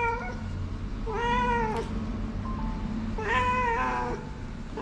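Orange-and-white stray cat meowing while being held and examined: three drawn-out meows, each rising then falling in pitch, the last one the longest.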